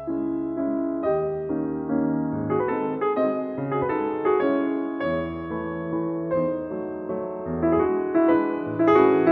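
Piano music, a continuous run of notes and chords.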